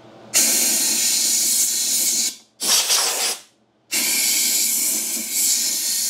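Compressed-air blow gun blasting into a lawn mower's fuel tank through the filler neck, blowing the dirty tank out. It comes in three blasts: one of about two seconds, a short one, then a long one.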